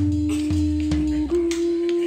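A home-made song playing back from a GarageBand project: one long held note, stepping up slightly past the middle, over changing bass notes and a few drum hits.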